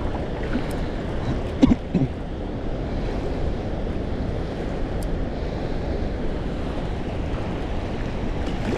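Steady low rush of wind and water at the shore, with two brief louder sounds close together about two seconds in.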